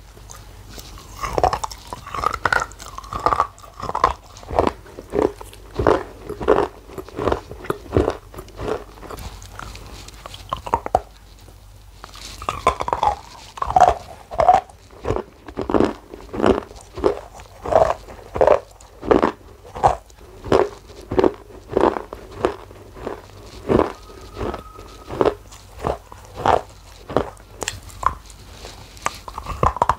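Close-up crunchy biting and chewing of a hard, brittle grey slab, with a crunch about every half second and a brief pause about eleven seconds in.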